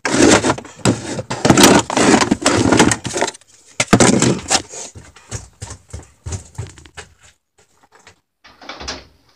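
Footsteps and clothing rustle close by on a wooden plank floor for about the first three seconds, followed by scattered faint knocks and clunks of tools being handled in a pickup bed.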